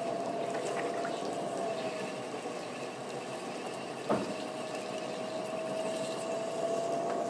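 Electric pottery wheel running with a steady whine, while wet clay squelches and hisses under the hands as it is pushed in and down to center it. One short knock about four seconds in.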